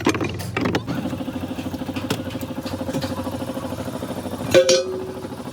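A motor running with a fast, even throb, with a few clicks before it and a brief louder tone near the end.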